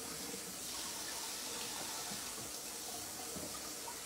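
Kitchen tap running steadily into a sink.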